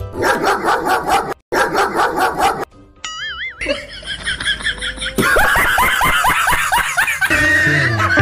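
Edited-in music and comedy sound effects: a rhythmic, bark-like effect in two runs with a brief dropout between, a short wobbling warble about three seconds in, then music with quick gliding squeaks that swells to a full track.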